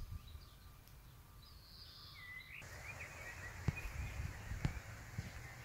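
Outdoor ambience: birds chirping now and then over a low rumble of wind on the microphone. Two sharp clicks come in the second half.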